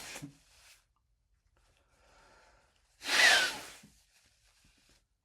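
A man sneezing from pepper: the tail of one sneeze at the start, a faint intake of breath, then a single loud sneeze about three seconds in.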